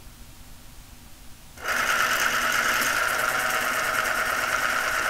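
Electric pencil sharpener switching on about a second and a half in as a wooden pencil is fed into it, then running steadily with a whirring grind as it sharpens the pencil.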